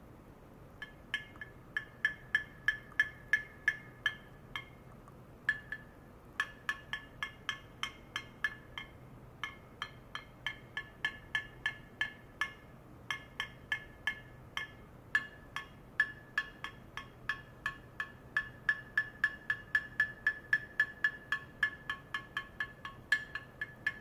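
A rod tapping a clear cylindrical vessel in repeated runs of about two to three taps a second, with short pauses between runs. Each tap rings briefly with a clear tone.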